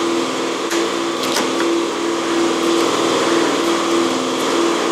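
Steady machine hum with a pulsing tone running throughout, with a few light metallic clicks as a hand tool works the hose clamp.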